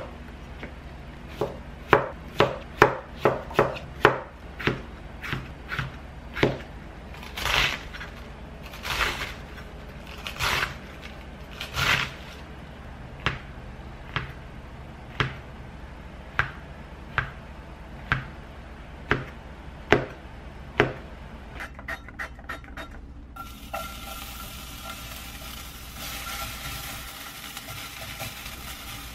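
A chef's knife chopping cucumber and shiitake mushrooms on a plastic cutting board, with uneven knocks about one a second and some longer slicing strokes. From about 23 seconds in this gives way to a steady sizzle of minced garlic frying in a pan.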